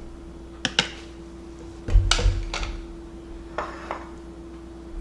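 A metal spoon clinking and tapping against a bowl as seasonings are spooned in: a couple of light clicks, then a louder knock with a dull thud about two seconds in, and a few softer taps after.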